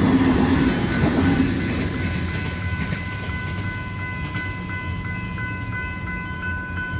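Alstom Comeng electric train running through a level crossing, its rumble fading over the first couple of seconds. It leaves the crossing's General Signal Type 3 electronic bells ringing in a steady, evenly repeating pattern.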